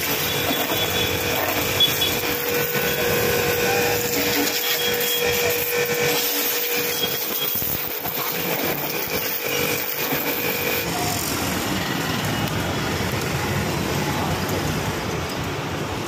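A 2 hp high-pressure washer's spray gun blasting a hissing water jet onto a scooter, with the pump running. A steady whine runs under the spray and stops about eleven seconds in, leaving the hiss.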